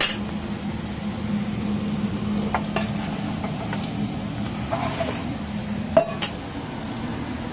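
Steady kitchen hum and hiss with a few light clinks and taps of a metal tray and dishes, the sharpest about six seconds in.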